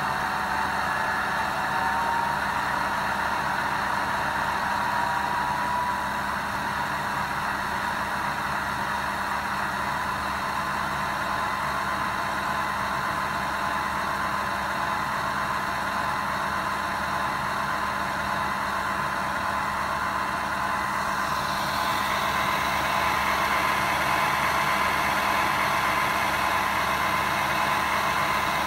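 Simulated DF11 diesel locomotive engine from a LokSound v4 sound decoder, played through a small woofer speaker: a steady diesel running sound with a high whine over it. About twenty-one seconds in it grows a little louder and brighter.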